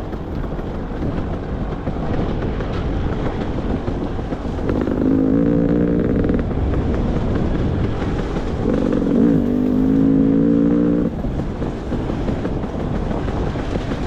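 Beta 300 RR two-stroke dirt bike engine running on the trail, with a steady held engine note about five seconds in and again about nine seconds in, over continuous rough riding noise.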